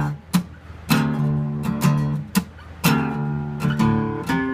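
Acoustic guitar playing strummed chords in an instrumental passage, with a sharp strum about once a second and each chord ringing on between strums.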